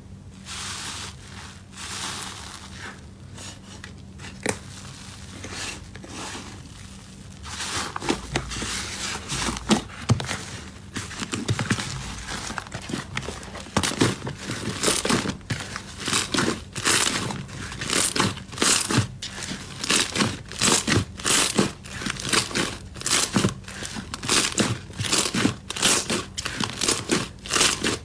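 Hands pressing and kneading green slime, which makes a wet crackle and squish. It is soft and irregular at first, then from about eight seconds in turns into louder, sharper crackling pops, about two a second, as the slime is pressed down again and again.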